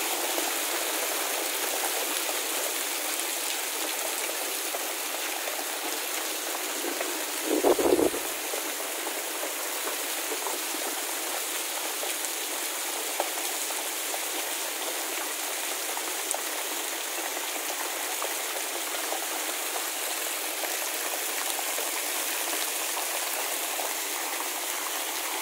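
Heavy storm downpour: a steady hiss of rain, with a stream of roof runoff pouring and splashing onto muddy ground. A brief low thump comes about eight seconds in.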